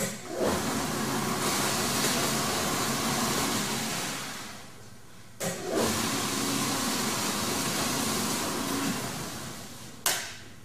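Clean Cut flatbed roller die cutter running a manual-mode cycle: its drive runs with a steady hum for about four seconds, stops briefly, then runs again for about three and a half seconds. A sharp clunk follows near the end.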